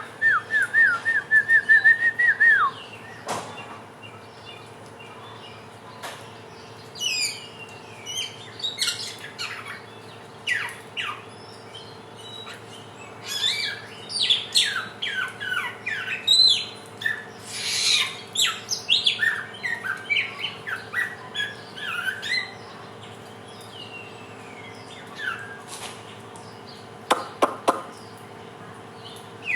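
Young samyong singing a varied, disjointed string of chirps, whistles and trills while learning its calls. It opens with a loud fast trill of repeated notes, then runs through many different short calls.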